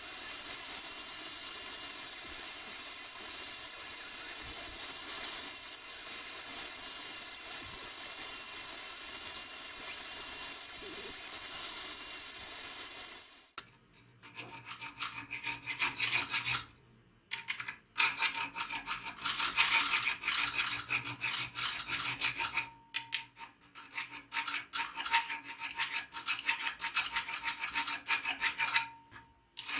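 A power tool runs steadily and cuts off about 13 seconds in. It is followed by quick, repeated hand filing strokes on the hatchet, coming in runs with short pauses between them.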